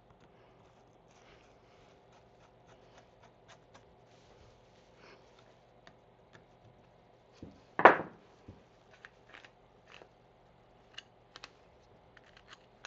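Scattered light metal clicks and handling of a reassembled antique ratchet being worked by hand, with one loud knock about eight seconds in and a run of sharper clicks near the end.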